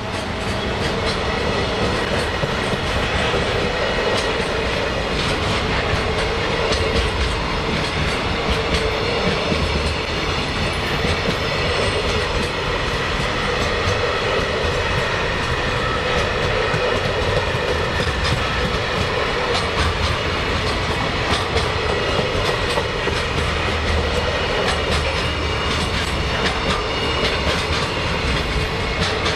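Freight train of container flatcars rolling past, a steady rumble of wheels on rail with repeated clacks over the rail joints and a faint steady squeal from the wheels.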